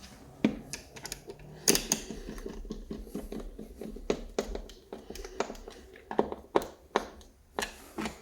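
Irregular sharp clicks and taps of small hard parts being handled and fitted by hand, about a dozen spread through, the loudest about half a second and 1.7 seconds in.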